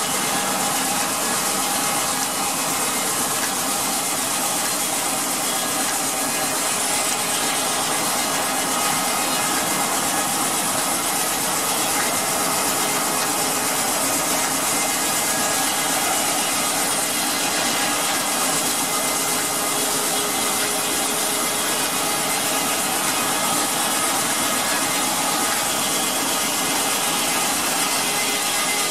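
Steam-powered sawmill running: the large circular saw blade and its flat belts and pulleys, driven by a one-cylinder steam engine, make a steady, even mechanical noise with faint steady tones in it.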